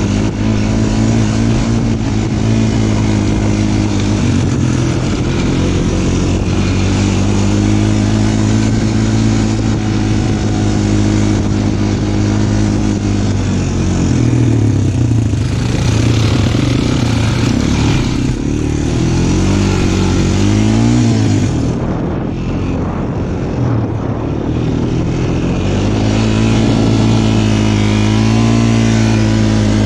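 Small off-road engine running under way, with the pitch of its drone dropping and rising several times as the throttle is let off and opened again.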